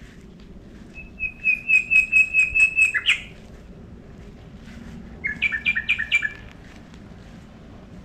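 A bird singing: a run of about a dozen quick, evenly repeated clear notes starting about a second in and lasting about two seconds, then, about five seconds in, a shorter run of about six quick two-pitched notes.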